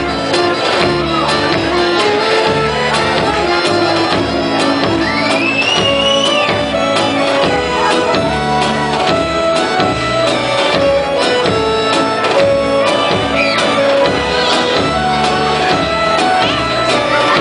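Southern Serbian folk dance music from the Vranje region, with a steady beat and a repeating melody, played for a women's line dance. A short high glide rises and falls over the music about five seconds in.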